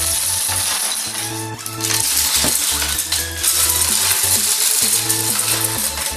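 Coloured wooden craft sticks clattering in a dense rattle as a woven stick-bomb chain springs apart and the sticks scatter on a wooden floor, over background music with a steady beat.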